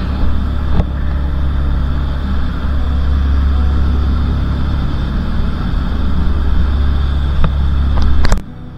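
Motor yacht underway: the engines' steady low rumble and the rush of wind and water, with a few light clicks. It cuts off abruptly shortly before the end.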